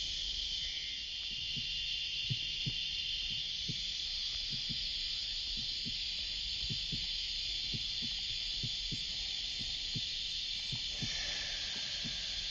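Dense summer cicada chorus, a steady high-pitched drone that shifts slightly near the end, over soft irregular low thumps.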